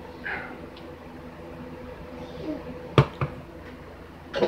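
Spatula scraping thick cake batter off a stand-mixer beater and knocking against the stainless steel mixing bowl: two sharp knocks about three seconds in, and another few at the very end, over a faint steady hum.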